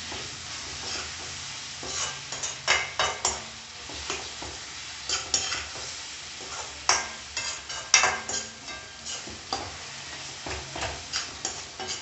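Metal spatula scraping and clinking against a metal kadai in irregular strokes as an onion-tomato masala with chilli powder is stirred, with steady sizzling of the frying masala underneath. The loudest strike comes about eight seconds in.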